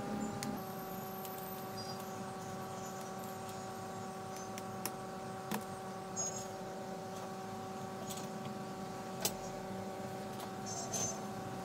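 A few small, sharp metallic clicks and clinks of screws being taken out of a laptop's bottom cover and set down, over a steady hum made of several even tones.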